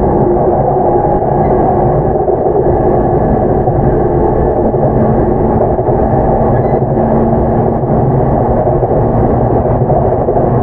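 Steady running noise heard inside a JR E233 series 7000 commuter electric train's motor car (Mitsubishi IGBT VVVF drive) travelling at speed: an even, dense rumble of wheels on rail and running gear with no sudden changes.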